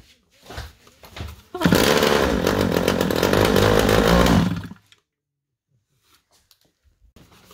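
Small mini-motorcycle engine, started by a cord wrapped round its flywheel, catches about a second and a half in and runs for about three seconds, then cuts out suddenly. Light knocks come first as the cord is handled.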